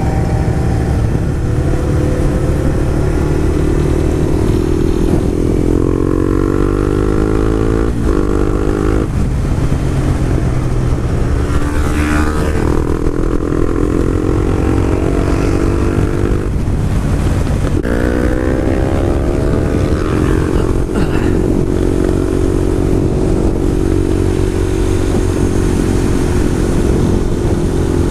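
Honda CBR sport bike with a Yoshimura aftermarket exhaust under way, its engine note climbing in pitch as it accelerates, with several short breaks at the gear changes, then holding steady for the last ten seconds or so.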